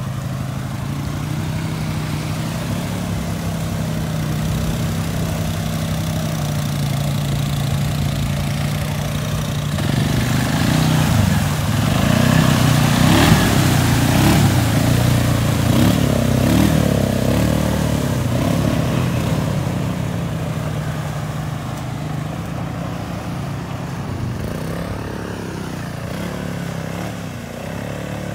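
A Suzuki KingQuad 750 ATV's single-cylinder engine running as the quad drives through shallow water, with water splashing and spraying around the wheels. It gets louder as the quad passes close, about ten to twenty seconds in, then eases off as it moves away.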